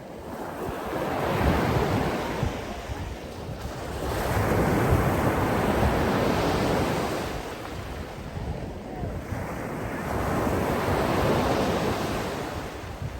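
Sea waves breaking and washing, the surf swelling and fading three times.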